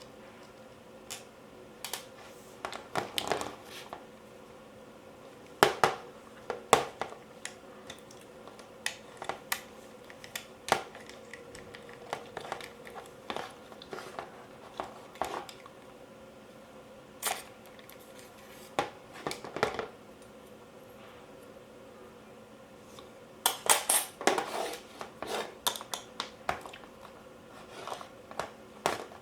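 Parts and tools of an airsoft AK being handled during disassembly: irregular clicks, taps and clatters of metal and plastic pieces, bunched into short flurries, over a faint steady hum.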